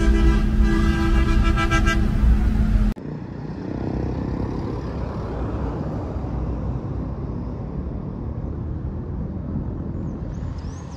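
A vehicle horn held in one steady tone for about three seconds, cut off abruptly, followed by the steady low rumble of road traffic.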